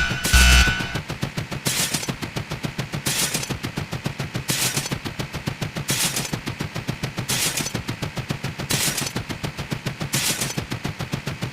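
Rapid-fire sound effect: a fast, even rattle of sharp clicks, with a louder hissing burst about every second and a half.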